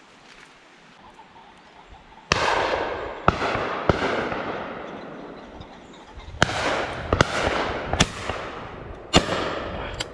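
Shotgun shots at driven pheasants: about eight sharp reports in quick succession, starting about two seconds in, each followed by a fading echo.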